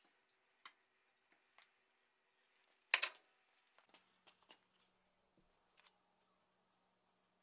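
Quiet workshop with scattered faint clicks and knocks from a blade and tools being handled, and one louder short knock about three seconds in.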